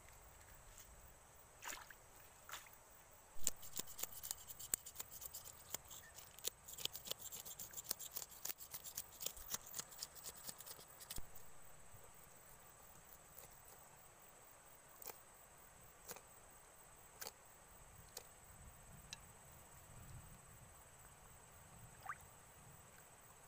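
A fish being scaled on a wet river rock. Rapid scraping clicks run for several seconds, then thin out to scattered scrapes and ticks.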